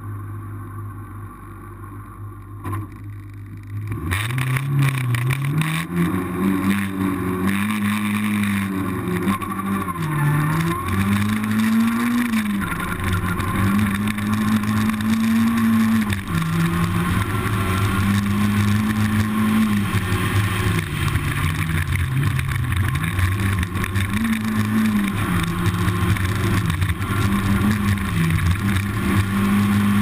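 Racing car engine revving hard: a quieter steady hum gives way about four seconds in to a loud engine note that climbs in pitch, then holds high with repeated short dips and recoveries.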